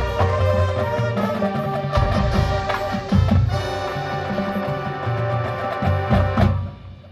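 High school marching band playing sustained brass chords over drums. About six and a half seconds in, the band cuts off and the sound falls away into a brief lull.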